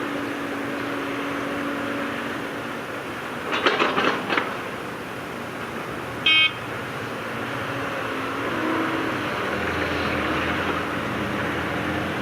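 Diesel engines of an excavator and dump truck running steadily, with a quick cluster of knocks about four seconds in and one short horn toot a little after six seconds.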